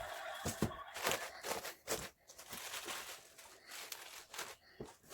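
Irregular crisp crunches, rustles and knocks of vegetables being handled and cut.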